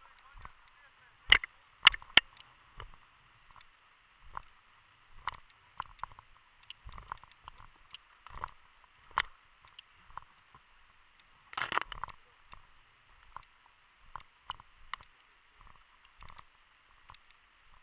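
Footsteps and rustling of a person walking through tall dry grass, in irregular soft crunches, with three sharp knocks a little over a second in and a short burst of rustling about twelve seconds in.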